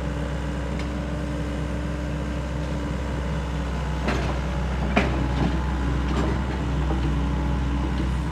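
Sany SY75C excavator's diesel engine running steadily as the machine tracks and turns on gravel, with a few sharp clanks about halfway through.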